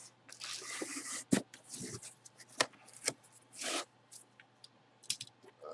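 Handling noise: rubbing and rustling with several sharp light clicks or taps and a short swish.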